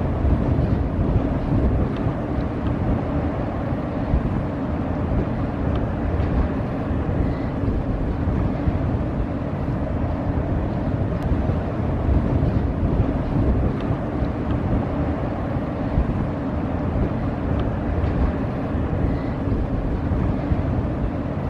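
Steady low rumble of a passing inland cargo ship's engine, mixed with wind buffeting the microphone and the wash of the water.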